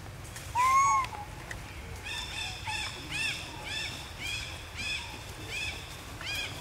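Animal calls: one loud call rising and falling in pitch about half a second in, then a steady run of short, high chirping calls, each bending up and down, about two a second.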